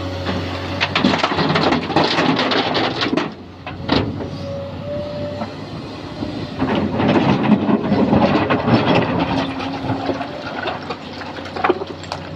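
Sany SY215C excavator's diesel engine running steadily under load while its bucket works mountain rock, with two spells of rocks clattering and scraping, about a second in and again about seven seconds in.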